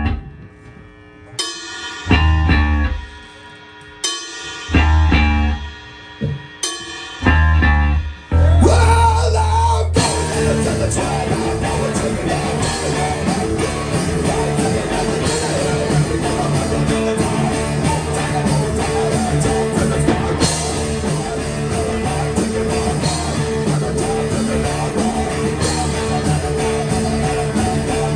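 A live rock band playing. It opens with stop-start hits of bass and drums separated by short gaps, then from about ten seconds in the full band plays without a break: electric guitar, bass, drum kit and vocals.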